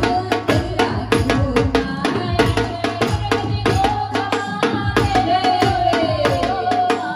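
Gujarati dandiya folk music: a singer's voice over a dhol drum beat and rhythmic clacking of dandiya sticks struck in time, several strikes a second, with a steady low hum beneath.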